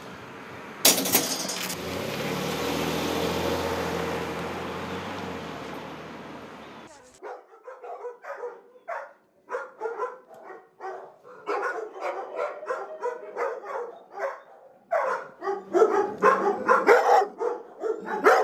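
A van's engine running as it drives off, starting with a sharp thump about a second in and fading out about seven seconds in. Then a dog barking over and over in short barks, several a second at times.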